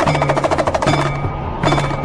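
Background music: fast, rattling percussion at about fifteen strokes a second over a low bass note that comes back roughly every 0.8 seconds.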